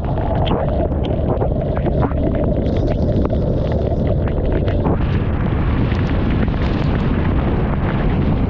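Yamaha TMAX scooter riding in the rain: a steady engine and road rumble under wind buffeting on the microphone, with many sharp ticks of rain striking it. About five seconds in the hiss of wind and spray grows louder.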